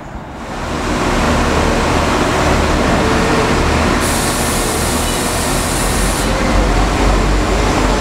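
A diesel train running close by, a loud steady rumble that rises sharply in the first second, with a burst of air hiss from about four to six seconds in.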